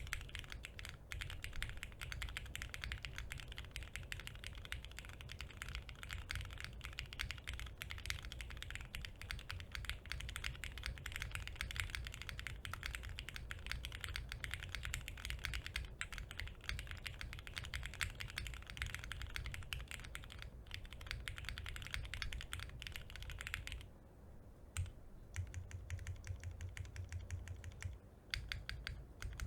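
Fast, continuous typing on a Portal65 custom mechanical keyboard with lubed and filmed Cherry MX Hyperglide Black linear switches in a half plate, with no dampening. The typing eases briefly near the end before picking up again.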